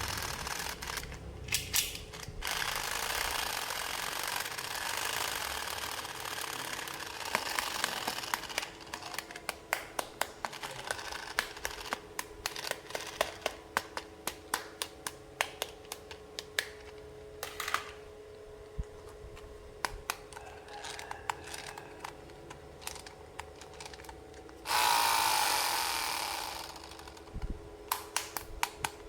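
Toy packaging and plastic toy pieces being handled: rustling, with many sharp clicks and taps of plastic, over a faint steady hum. About 25 seconds in comes a loud rasping noise lasting about two seconds, like packaging being torn.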